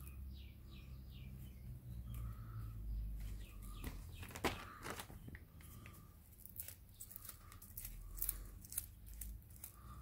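Light clicks and crackles of the thin insulated wires of an Ethernet cable's twisted pairs being untwisted and straightened by hand, coming in scattered clusters, busiest in the middle and the second half.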